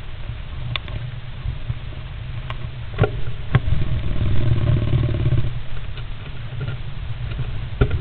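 Great spotted woodpecker preening inside a wooden nest box: scuffing and rustling of feathers against the wood, with a few sharp taps and knocks. A denser rustle lasts about a second and a half midway. A steady low rumble runs underneath.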